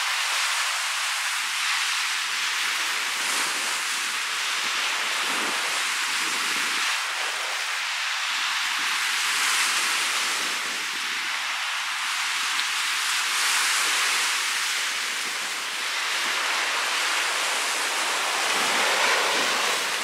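Waves breaking and washing up a sandy lake shore in a strong wind, with wind noise on the microphone. The surf swells and eases every few seconds.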